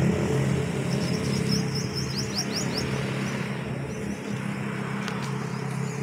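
Motor vehicle engine noise fading away into a steady rumble of distant traffic, with a bird's quick run of rising chirps about two seconds in.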